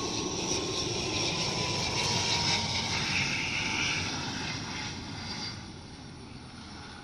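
Landing airliner's engines passing by, a steady noise with a faint tone sliding slowly down in pitch, dying away from about five and a half seconds in.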